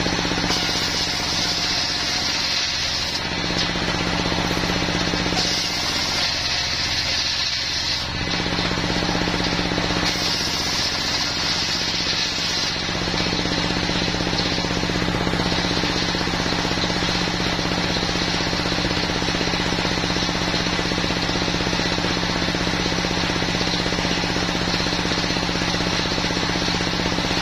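Stationary single-cylinder diesel engine driving a large circular saw blade, running steadily with a low hum. Three times in the first half, for a couple of seconds each, the blade cuts through a wooden plank with a hissing rasp. It then spins free.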